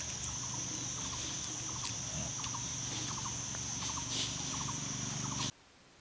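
Forest background: a steady high-pitched insect drone, with an animal repeating short clusters of quick notes about twice a second. Both cut off abruptly near the end, leaving near silence.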